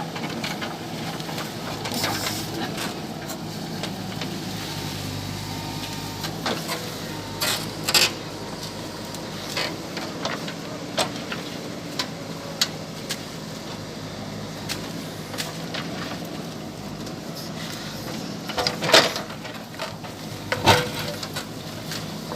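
JCB 3DX backhoe loader's diesel engine running steadily, with scattered sharp knocks and cracks over it, the loudest two near the end.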